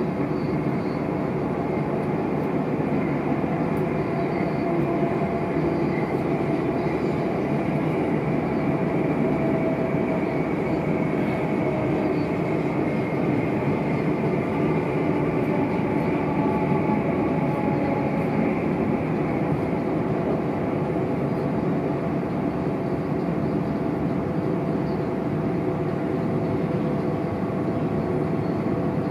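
Passenger train running at speed, heard from inside the carriage: a steady rumble of wheels on the track, with a few faint steady whining tones over it.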